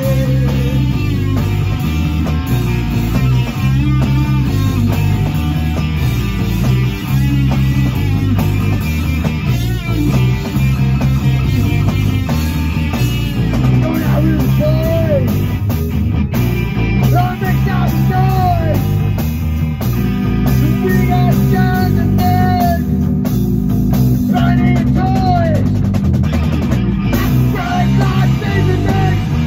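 Live rock band playing loud and steady: electric guitar through a Laney amp, bass guitar, a Pearl drum kit, and a singer's vocals.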